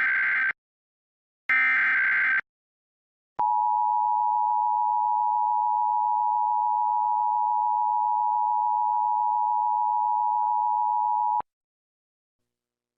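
Emergency Alert System signalling: the end of one SAME header data burst, a second short burst about two seconds in, then, after a one-second gap, the EAS attention signal, two steady tones sounded together, held for about eight seconds before cutting off suddenly.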